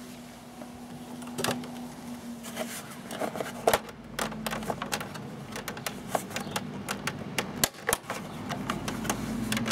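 Irregular plastic clicks and knocks as the motorcycle's dashboard trim panels are handled and worked loose, sparse at first and then coming quickly for several seconds.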